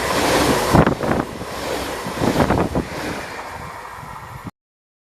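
A train passing, its rumble mixed with wind buffeting the microphone, swelling twice and slowly fading, then cutting off suddenly.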